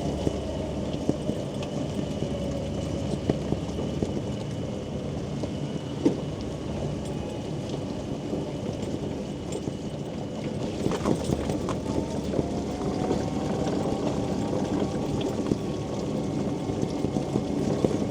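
Quingo Toura Mk2 mobility scooter driving in the rain: its electric motor's whine slowly falls and rises in pitch as the speed changes, over a steady wash of rain and wheel noise, with a few sharp knocks along the way.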